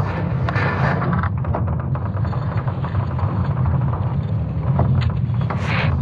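ESA's sonification of Earth's magnetic field during the Laschamp excursion, built from recordings of creaking wood and falling rocks. A deep, steady rumble runs throughout, with bursts of crackling noise laid over it, one at the start and another near the end.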